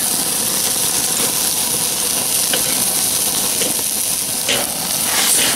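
Meat searing on a grate directly over flaming charcoal, sizzling steadily, with a few sharp pops and crackles.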